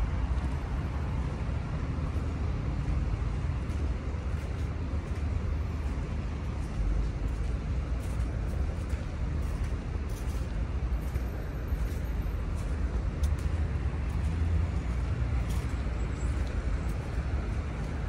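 Steady city traffic noise, a low rumble with no single vehicle standing out.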